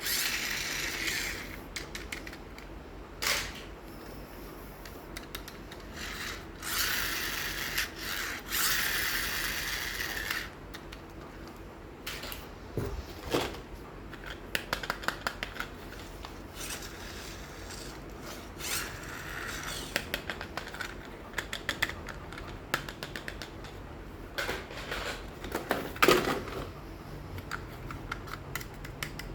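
Hands handling plastic toys and their packaging: stretches of rustling and many small clicks and snaps, with a louder knock near the end.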